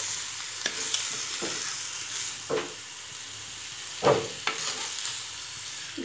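Raw chicken and tomato pieces being stirred with a spoon in a karahi over a high flame: a steady sizzle with irregular scrapes of the spoon against the pan, the loudest about four seconds in.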